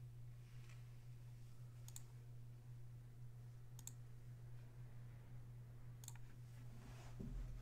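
Quiet room with a steady low hum and three sharp, brief clicks about two seconds apart. A soft rustle comes near the end.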